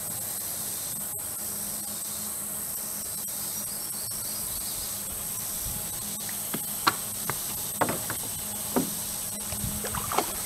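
Steady high-pitched chorus of insects. A few short sharp knocks and taps come in the second half.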